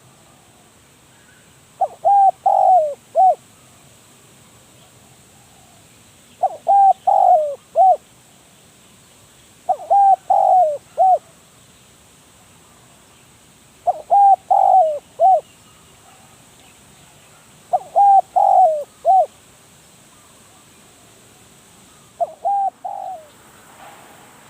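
Spotted dove cooing: six short phrases of three to four notes each, repeated about every four seconds, the last one cut short near the end.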